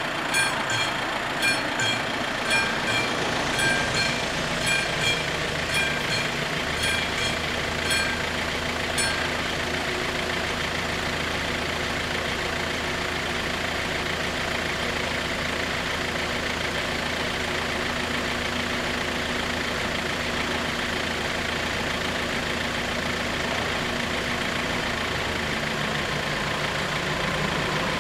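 Level crossing bell ringing, about one strike a second, while the barriers come down; it stops about nine seconds in, once they are down. Under it and afterwards a van's engine idles steadily.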